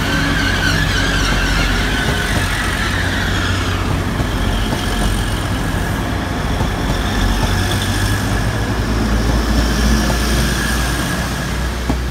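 Grand Central Class 180 diesel multiple unit passing close by: a steady loud rumble of diesel engines and wheels on rail, with a high whine that is strongest for the first few seconds and then eases and drops slightly in pitch.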